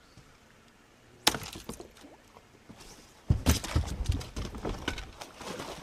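A single sharp knock about a second in, then a burst of thumps and scuffs on a bass boat's deck from about three seconds in, as an angler stumbles and goes down at the boat's edge.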